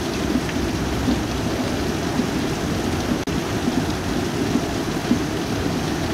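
Heavy rain pouring down in a steady, even rush, with water running over the edge of leaf-clogged rain gutters.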